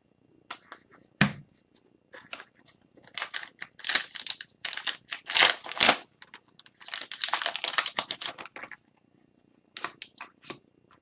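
Foil wrapper of an Upper Deck Extended Series hockey card pack crinkling and tearing as it is pulled open, with the cards slid and handled. Irregular rustles, densest from about three to nine seconds in.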